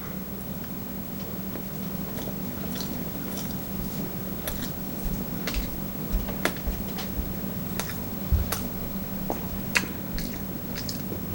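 Close-miked mouth sounds of a person chewing sushi: wet clicks and smacks at irregular intervals, a few louder ones in the second half, over a steady low hum.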